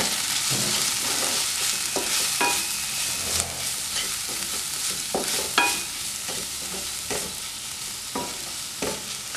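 Onion-tomato masala frying and sizzling in a pan while a wooden spatula stirs it, scraping and knocking against the pan about eight times.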